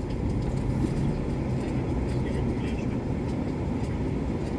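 Steady low rumble of a Renault Duster heard from inside the cabin as it rolls slowly in traffic: engine hum and road noise.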